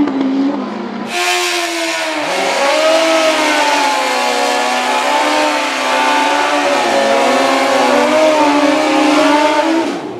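Racing dirt bike engines at high revs during a drag run. The pitch dips with a gear shift about two seconds in, rises again and wavers. The sound jumps in abruptly about a second in and cuts off suddenly near the end.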